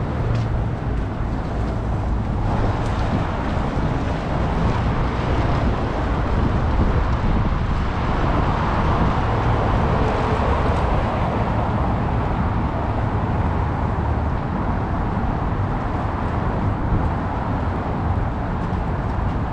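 Steady city road traffic noise with a low rumble; it swells as a car passes about eight seconds in, easing off again by about twelve.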